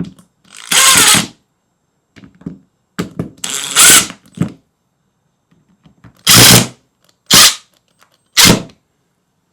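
A power tool motor run in five short bursts, the first two each under a second, the last two brief blips.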